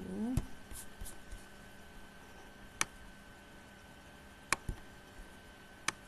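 A short hummed voice sound at the very start, then three sharp computer mouse clicks about a second and a half apart, over a faint steady high tone.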